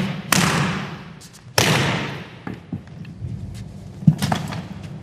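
Tennis racket being smashed in a fit of racket abuse: two loud cracks about a second apart, each ringing out for a second or so, then a lighter knock about four seconds in.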